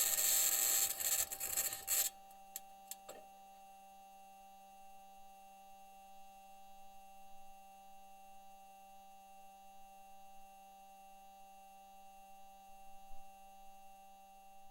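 Perseverance rover microphone recording: a loud, harsh rasping and scraping noise cuts off abruptly about two seconds in, followed by a few sharp clicks and then a faint, steady electrical hum made of several held tones.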